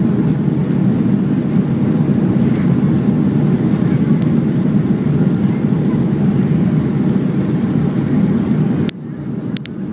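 Steady rumble inside the cabin of a Boeing 737-400 on final approach, with engine noise and rushing air heard from a window seat. Near the end the sound drops suddenly for about a second, with a couple of sharp clicks.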